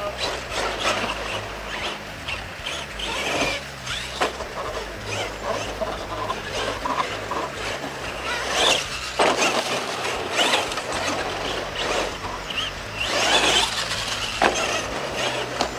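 Radio-controlled monster truck running freestyle on a dirt track: its motor and drivetrain whine as it revs up and down, with tyres scrabbling and a few knocks. It is louder in surges about nine and thirteen seconds in.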